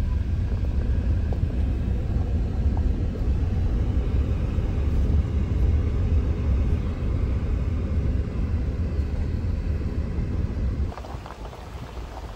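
A steady, loud low rumble that starts abruptly and drops away about eleven seconds in.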